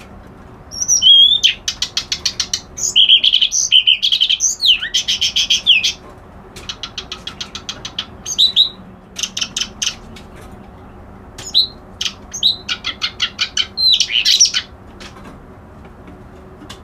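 Kerak basi alis putih songbird singing: loud phrases of fast, rapidly repeated sharp chattering notes mixed with short whistled slurs, broken by brief pauses.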